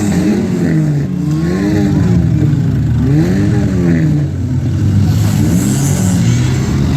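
Demolition derby cars' engines revving up and down, several at once, their pitch rising and falling over and over.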